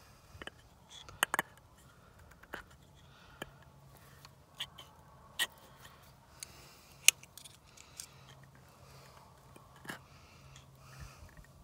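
Irregular light metallic clicks and taps, about a dozen, from a small pick tool and fingers working at the fuel lift pump of a John Deere 4840 diesel injection pump, the sharpest about a second in and about seven seconds in.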